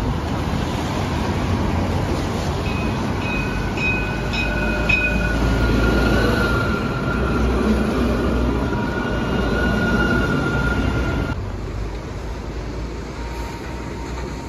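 A steel-wheeled light-rail tram passing close by on wet track over road traffic, with a high steady whine through the middle of the pass. The sound drops suddenly to a quieter hiss about eleven seconds in.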